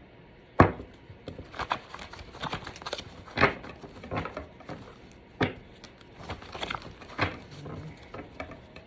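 Tarot cards being shuffled and handled on a table: irregular sharp taps and rustling, about one tap a second.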